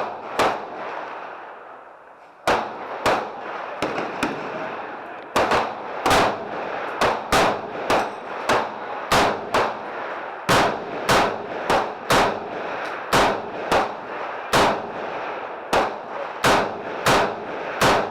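Gunfire from several shooters on a firing line: sharp shots at an irregular pace, roughly two a second, each with a short echo. There is a break of about two seconds near the start.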